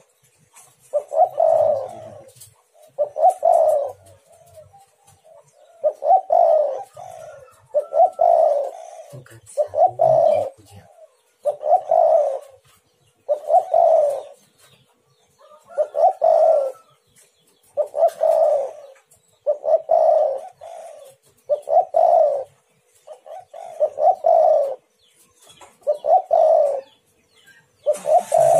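Spotted dove (tekukur) cooing: a steady series of short coo phrases, repeated about every two seconds.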